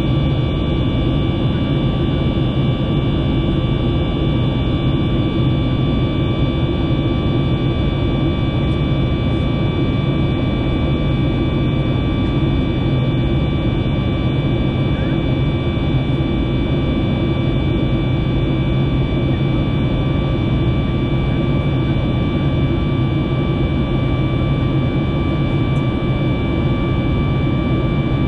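The CFM LEAP-1B turbofan engines of a Boeing 737 MAX 8 at climb power, heard from inside the cabin. A steady low rumble of engine and airflow runs under several steady high whining tones.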